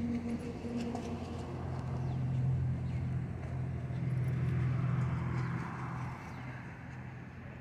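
A motor running with a steady low hum that holds one pitch, fading after about six seconds, with faint scattered clicks over outdoor background noise.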